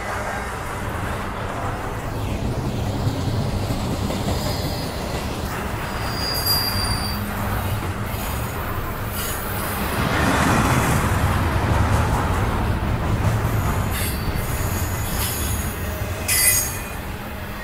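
Double-stack container well cars of a long freight train rolling past, a steady low rumble of wheels on rail that swells about two-thirds of the way through. Brief high wheel squeals come and go, the loudest a short sharp screech near the end.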